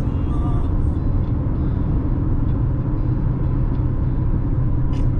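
Steady low rumble of road and engine noise heard inside a moving car's cabin at highway speed, with a brief click near the end.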